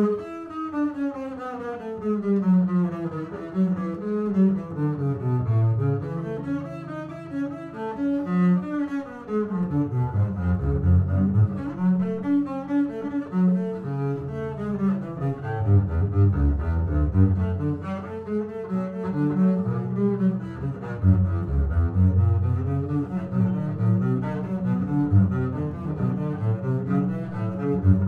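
Solo double bass played with the bow, running through a fast étude: quick falling runs in the first few seconds, then rapid passages of notes across the low strings.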